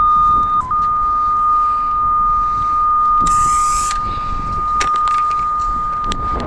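Cable locator receiver sounding a steady, high, unbroken tone as it picks up the traced signal on a buried 12 kV power cable. The pitch dips briefly just under a second in. A short hiss comes about three seconds in, and a few clicks come near the end.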